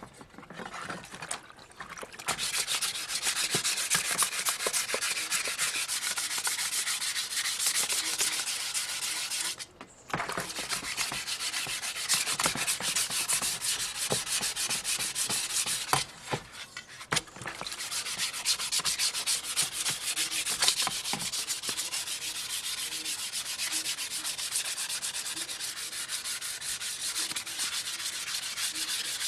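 Sandpaper rubbing over an aluminium sewing-machine cover, a continuous scratchy hiss that breaks off briefly about ten seconds in and again around sixteen seconds.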